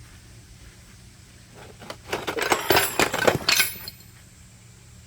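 Shards of a broken earthenware jar clattering and clinking together as they are moved, a rapid run of hard clinks lasting about two seconds, starting about two seconds in.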